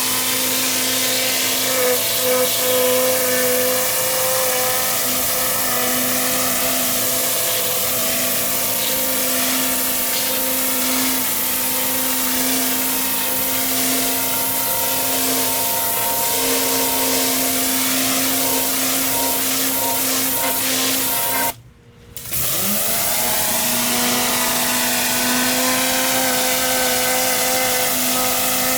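Pressure washer running steadily while its water jet sprays and hisses. About three quarters of the way through, the sound cuts out for about half a second, then returns with a rising pitch as it picks back up.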